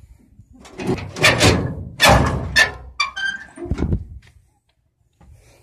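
Steel engine cover of a Volvo EC210 excavator being swung open: a loud rattling scrape of the metal panel, a brief squeak about three seconds in, and a thud near four seconds as it comes to rest.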